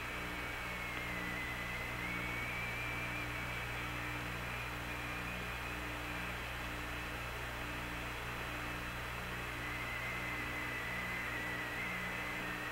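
Idle Apollo 11 air-to-ground radio link: a steady hum with hiss and a faint high whistle that wavers slightly in pitch.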